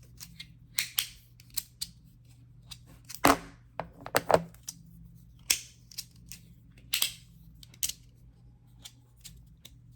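3D-printed resin magnetic fidget being worked by hand, giving sharp, irregular clicks and snaps as its parts are pushed and pulled against the magnets, with a couple of louder snaps about three and four seconds in. The magnets in this one are on the weak side.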